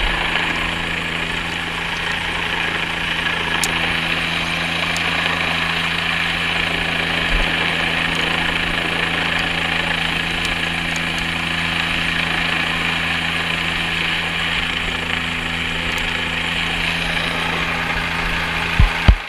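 Helicopter running steadily: a constant loud drone with a low hum and a strong hiss, unchanging throughout. Two sharp knocks come just before the end.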